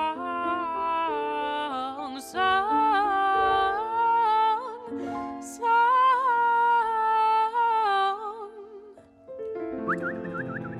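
Female voice singing long, high held notes with vibrato over sustained piano chords, in an acoustic performance of a song. The voice stops about nine seconds in, and a quick warbling high tone starts near the end.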